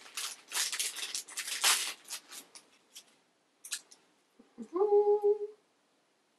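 Plastic wrapper of a small squishy toy crinkling and tearing as it is opened, tapering off into a few scattered rustles and clicks. About two-thirds of the way through, a short closed-mouth hum, rising and then held briefly.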